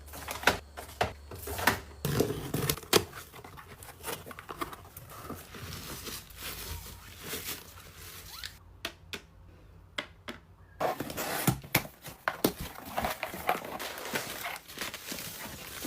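Packaging and items being handled up close: plastic crinkling and tearing, with many sharp clicks and knocks. There is a quieter stretch with only a few isolated clicks about two-thirds of the way through.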